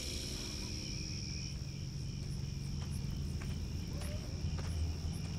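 Crickets chirping in a steady high tone, strongest for the first second and a half and then fainter, over a low steady drone.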